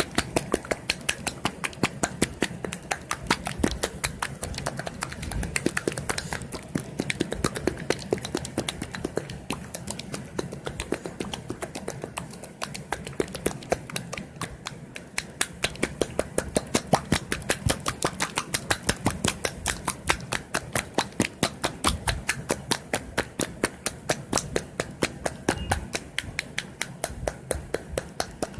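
Mayonnaise being slapped: a quick, even run of wet slaps, about three or four a second.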